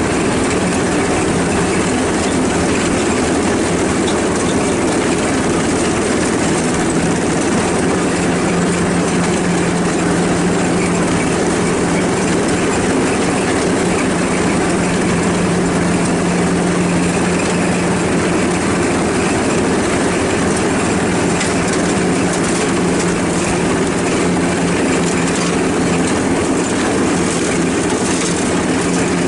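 Ride-on lawnmower engine running steadily under way, a constant loud drone with a steady pitched hum.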